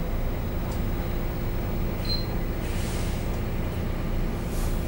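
A bus's diesel engine idling steadily, heard from on board. A brief high squeak comes about two seconds in, and short hisses about three seconds in and again near the end.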